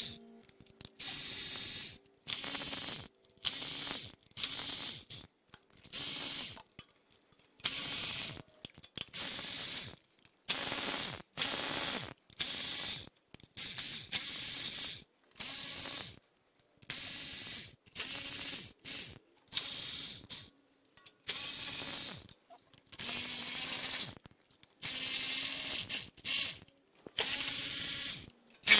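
Cordless electric ratchet spinning out the 10 mm oil pan bolts on a BMW S54 engine, running in many short bursts of about a second with brief pauses between them.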